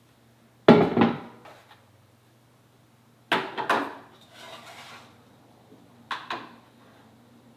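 Pots and utensils clattering in three short bursts, about a second in, after three seconds, and after six seconds, over a steady low hum.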